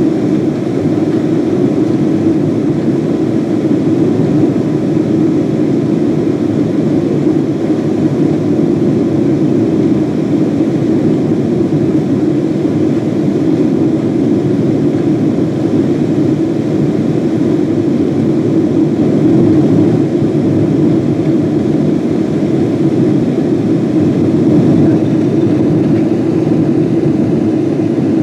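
Steady cabin noise of a Boeing 777-200 in its climb after takeoff: the twin jet engines and rushing air, a low, even drone heard inside the economy cabin.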